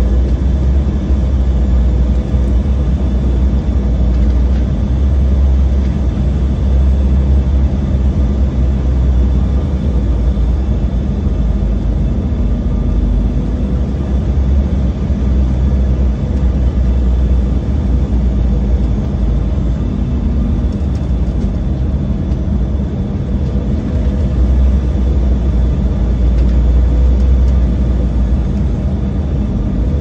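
Cabin noise inside an Embraer 190 on final approach, heard near its wing-mounted GE CF34 turbofans: a steady, loud low rumble of engines and rushing air, with a faint steady whine above it.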